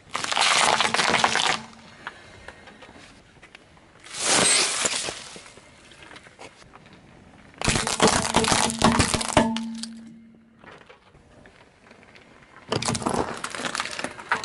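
Car tyre rolling over and crushing objects on asphalt: four separate bursts of crunching and cracking, from fresh green peppers and hollow plastic toys giving way under the wheel.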